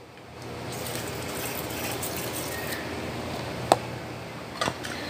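Pest-control pressure sprayer spraying liquid in a steady hiss that starts about half a second in, with a sharp click about three and a half seconds in and two more near the end.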